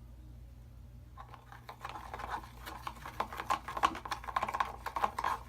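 A spoon or fork stirring a glue and shaving-cream slime mixture in a bowl: rapid, irregular clicks and taps of the utensil that start about a second in and keep going.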